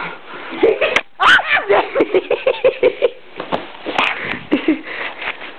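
Unintelligible voices and laughter close to the microphone, with a short sharp burst of breath or noise just after one second and a quick run of rapid laugh-like pulses from about two seconds to three.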